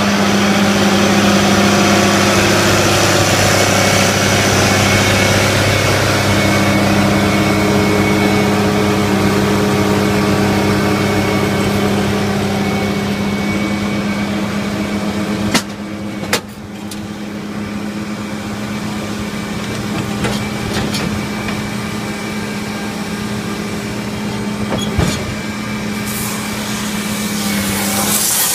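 Tractor engine running steadily under load, driving a Lely Welger round baler-wrapper combination, with a constant low drone. Two sharp knocks about halfway through.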